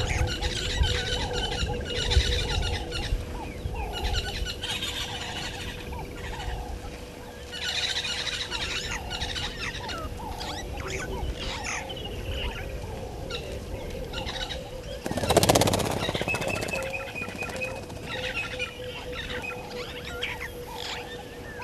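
Wild birds chirping and calling, several at once, with a faint steady tone underneath. About fifteen seconds in, a short, loud rushing noise briefly covers the birdsong.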